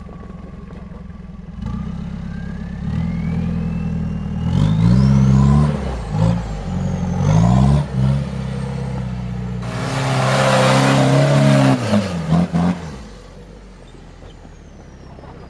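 Toyota 4x4 trial truck's engine revving in repeated surges, the pitch climbing and dropping as it works over the slippery track, with a loud rushing noise at high revs for about three seconds past the middle. Near the end the engine falls back to a low, quieter running.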